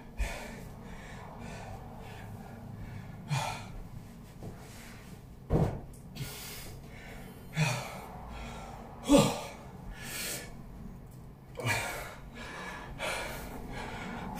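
A man breathing hard and gasping after intense exercise, out of breath. Sharp breaths come every one to two seconds, a few of them voiced like a groan, the loudest about halfway through.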